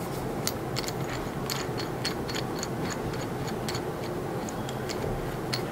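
Small plastic clicks and ticks, irregular and a few a second, as the clamp knob of a telescope smartphone adapter is turned to tighten it against a phone. Steady hiss underneath.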